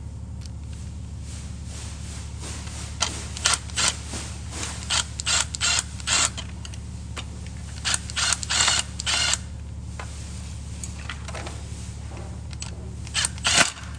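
Plastic parts of a Steelcase Gesture office chair's adjustment mechanism clicking and scraping in short irregular bursts as they are worked into place by hand. The bursts fall in two clusters, a long one from about three seconds in and a brief one near the end, over a steady low hum.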